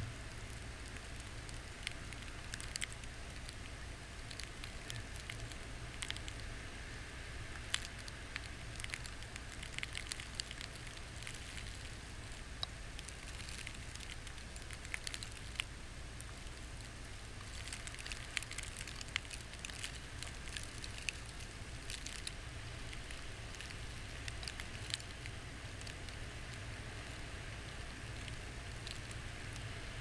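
Blizzard wind buffeting the microphone in a steady low rumble, with scattered irregular ticks and patters of wind-driven snow striking the camera.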